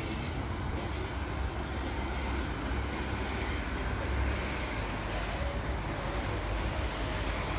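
Steady outdoor background noise: a low rumble with a hiss over it, with no distinct event.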